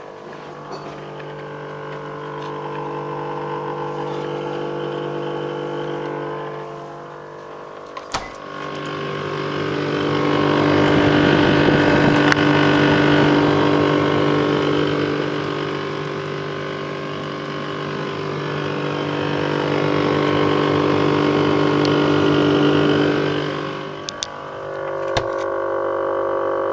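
Six-month-old GE refrigerator making a loud, droning hum of several steady tones that swells and fades in long waves, with a couple of short clicks partway through. The owner takes the noise as a sign that the fridge is defective.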